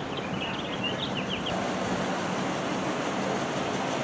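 Steady roadside traffic noise, with a cluster of short, high chirps in the first second and a half.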